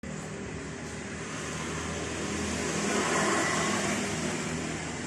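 A motor vehicle's engine hum with rushing noise, swelling to its loudest about three seconds in and then fading.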